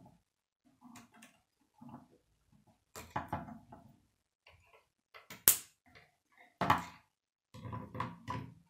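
Plastic K'nex rods and connectors clicking and clattering as they are handled and snapped together, in short irregular bursts. The sharpest snap comes about halfway through, with another a second later.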